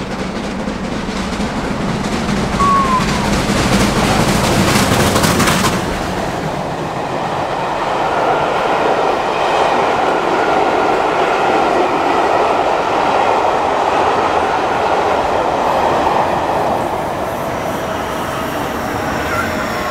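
Mainline steam locomotive passing close by at speed, loudest over the first six seconds, followed by its train of carriages rolling past with a steady rumble that fades toward the end.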